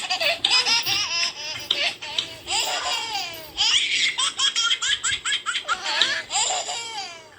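A baby laughing in repeated high-pitched runs of laughter, with short pauses between them.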